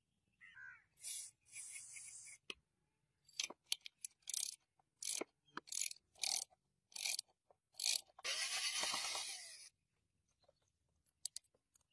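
Workshop tool noises: a run of short scraping, rasping strokes at uneven intervals. A longer scrape of about a second and a half comes about eight seconds in.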